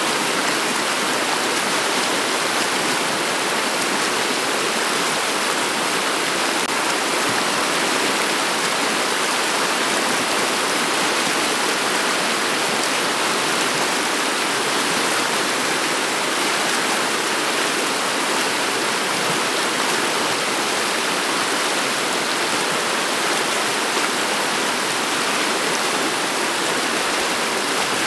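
The river Steyr's shallow, clear water flowing over a bed of pebbles and stones: a steady, even stream sound, more hiss than rumble, that does not change.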